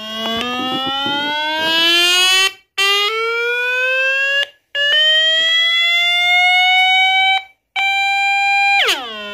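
Small bare loudspeaker on an amplifier board blaring a really loud, buzzy electronic tone. The tone slides upward in pitch three times with short breaks between, holds steady briefly, then swoops sharply down near the end.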